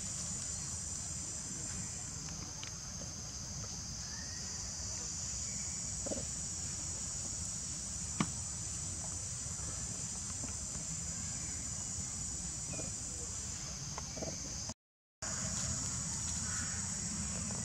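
Steady, high-pitched drone of insects over a low steady rumble, with a few faint clicks. The sound drops out completely for a moment about fifteen seconds in.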